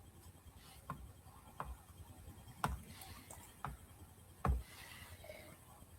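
A few faint, short clicks and knocks, roughly one a second, from things being handled in a small room, with a louder knock about four and a half seconds in.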